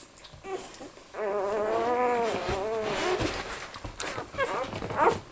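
Young Australian Shepherd puppy crying: one long whine of about two seconds that rises and falls, then a few short squeaks near the end.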